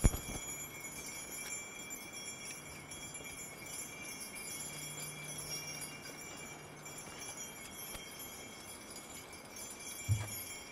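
Harness bells on a team of Belgian draft horses jingling steadily as the team comes up a snowy trail, with a thump near the end.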